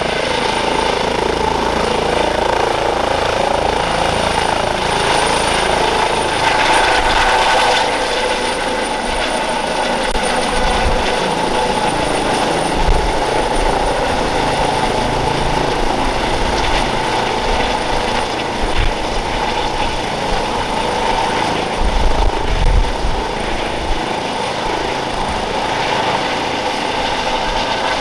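Airbus EC135 T2+ helicopter with twin Turboméca Arrius 2B2 turboshafts lifting off and climbing overhead, its turbines and rotor running steadily and loud, with a thin high whine throughout.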